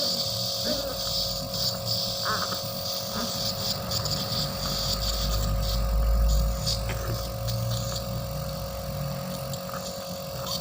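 A steady mechanical hum with fixed tones, and under it a low rumble that swells about halfway through and then fades.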